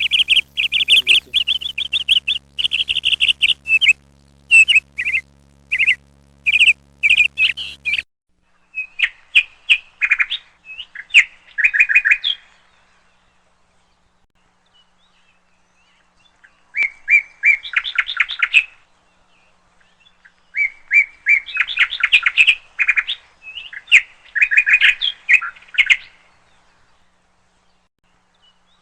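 Small birds chirping in rapid bursts of high calls, with pauses of a few seconds between bursts. A faint low hum lies under the first eight seconds.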